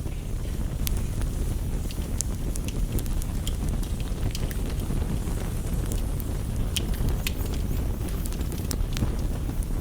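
Campfire crackling, with scattered sharp pops about once or twice a second over a steady low rushing noise of rain.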